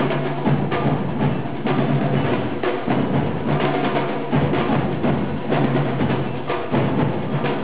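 Percussion-driven music: drums and sharp, knocking strikes playing a dense, continuous rhythm.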